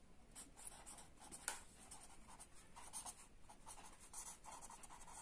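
Felt-tip marker writing on paper: faint, short scratching strokes, with a sharper tick about one and a half seconds in.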